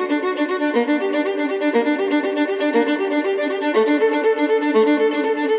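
Background music: a violin-led melody of short, quickly changing notes.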